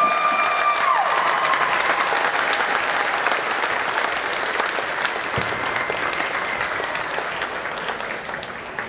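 Audience applauding, a dense steady clapping that dies down toward the end.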